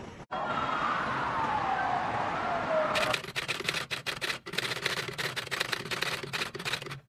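A hiss with a single tone sliding downward for a few seconds, then, from about three seconds in, a rapid, uneven run of typewriter-style keystroke clicks, a typing sound effect as a caption is typed out.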